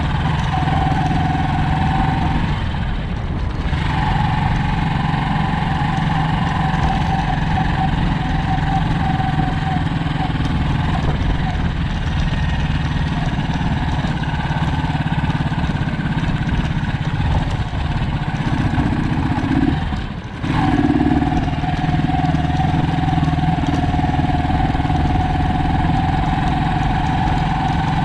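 An engine running steadily, dropping out briefly twice.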